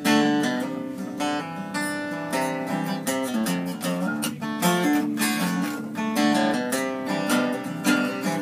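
Acoustic guitar strumming chords: the instrumental intro of a country song, played live before the vocals come in.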